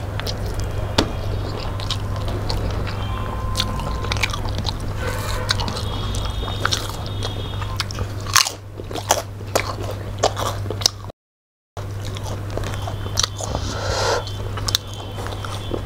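Close-miked chewing and biting as two people eat rice and fish curry by hand, with many short wet clicks from mouths and fingers over a steady low hum. The sound cuts out completely for about half a second around eleven seconds in.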